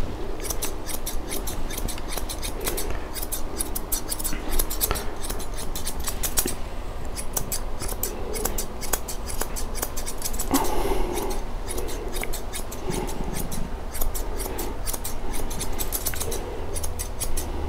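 Grooming shears snipping through a Bichon Frise's head fur in quick runs of crisp snips, several a second, with short pauses between runs.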